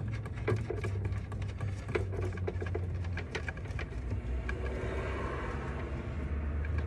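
Light clicks and small rattles of hand-fitting a screw onto the taillight's mounting from inside the car's trunk, thickest over the first few seconds, with soft rustling later and a steady low hum underneath.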